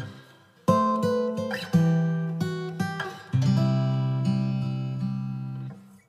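Background music of strummed acoustic guitar chords, each chord ringing out and fading. The music dips away just after the start and drops out near the end before coming back.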